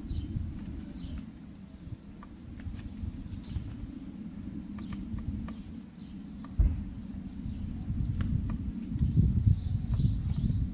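Birds chirping faintly over a low rumble, with scattered light clicks and one sharp knock about six and a half seconds in.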